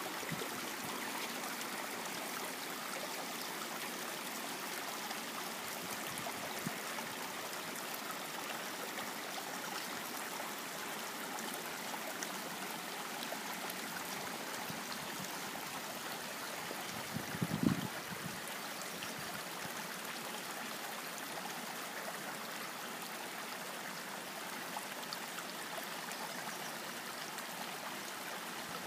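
A creek running over rocks: a steady rushing and trickling of water. About two-thirds through, a short gust of wind hits the microphone.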